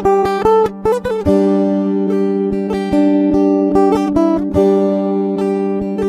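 Background acoustic guitar music, plucked notes in a steady rhythm.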